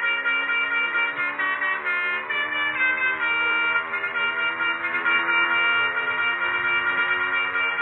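Telolet basuri multi-trumpet horn fitted to a motorcycle, playing a tune: several brassy horn notes sound together and change pitch in steps every half second or so, without a break.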